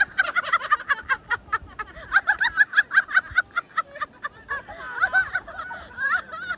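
A person laughing hard in rapid, high-pitched squealing bursts, about five or six a second, loosening near the end.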